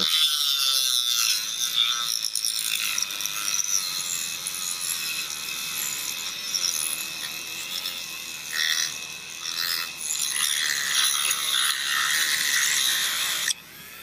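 Dremel rotary tool with a cutoff disc cutting into a polycarbonate V-wheel held in vise grips, to free the bearings inside: a steady high-pitched grinding whine that wavers as the disc bites, and stops shortly before the end.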